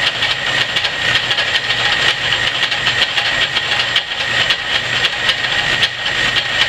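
Antique Rockford metal lathe running while its tool takes a facing pass on rusty steel flat bar in the four-jaw chuck: a steady hissing cut with a high whine and fast even ticking. The cut is only skimming rust off the high side of uneven stock.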